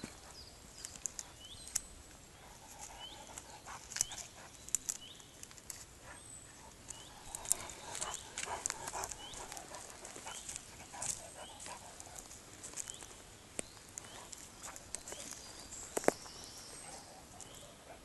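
A dog sniffing around and moving over forest-floor litter, dry twigs and debris crackling and snapping under its paws, with one sharp snap near the end.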